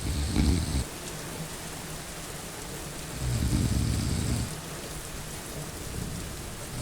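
A person snoring, each low snore lasting about a second and coming about every three and a half seconds, over steady rain.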